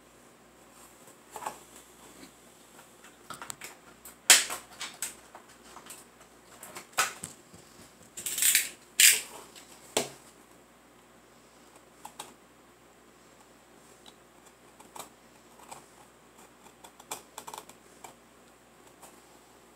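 Small wooden dollhouse stove part and a utility knife handled and worked on a tabletop: irregular clicks, taps and short scrapes, loudest in a cluster from about four to ten seconds in, then fainter scattered clicks.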